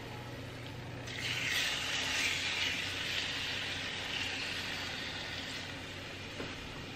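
Raw chicken breasts sizzling in hot olive oil and butter in a nonstick skillet. The sizzle swells about a second in as the second breast is laid in the pan, then slowly eases off.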